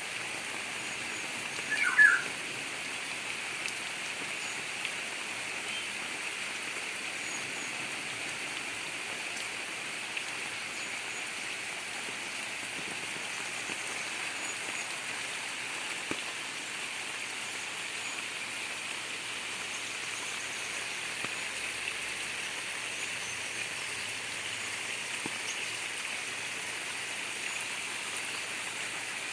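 Steady heavy rain with gurgling runoff water, an even hiss that holds throughout. About two seconds in a bird gives one short, loud call that drops in pitch, and faint high chirps come now and then.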